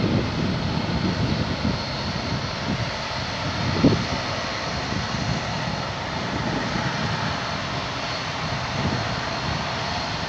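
Airbus A319 jet airliner's engines at takeoff thrust during the takeoff roll and climb-out: a steady rumbling jet noise with a faint high whine over it. There is a short thump about four seconds in.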